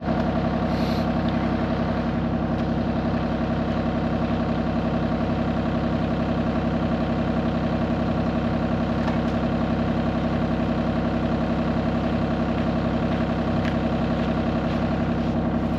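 Excavator's diesel engine running steadily at idle, its pitch and level unchanging.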